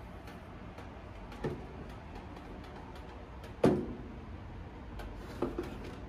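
Oster countertop toaster oven being opened: a click at a control knob, then a loud clunk as the door swings down open about three and a half seconds in, and a lighter knock near the end.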